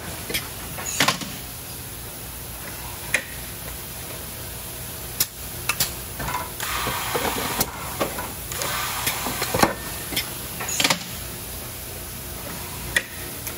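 Industrial machine running with a steady hum, broken by sharp mechanical clacks and several short bursts of air hissing, typical of pneumatic valves and cylinders cycling.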